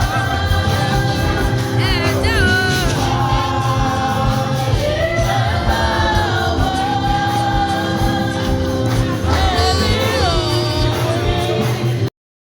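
Music with singing: a wavering sung melody over a steady beat, cutting off suddenly near the end.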